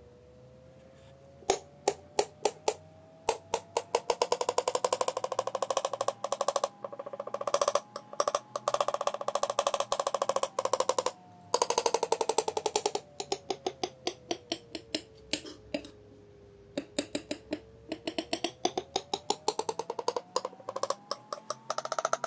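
Metal palette knife chopping and crushing crumbly dried green colour mix on paper: rapid runs of crisp, crackling clicks in bursts, with a few short pauses.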